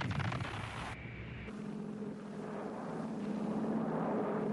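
The rumbling tail of a bomb blast, then, after a cut about a second and a half in, the steady drone of a twin-engine AC-47 Spooky gunship's piston engines in flight, growing louder.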